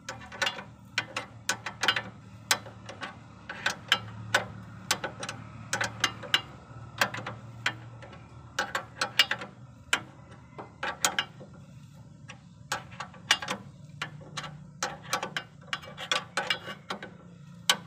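Hand tools working on metal under a car: quick, irregular clicks and clinks in short runs, over a faint low steady hum.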